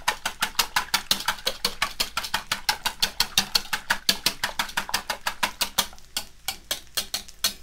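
Wire whisk beating eggs in a bowl, the wires clicking against the bowl's sides about seven times a second in a fast, even rhythm that gets a little lighter near the end.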